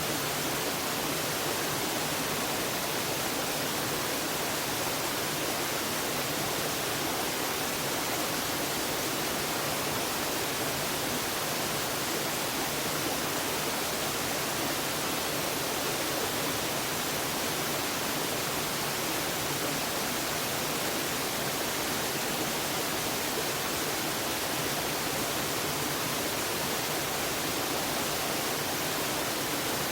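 Reirō waterfall: a steady, even rush of falling water, bright and hissy with little low rumble, unchanging throughout.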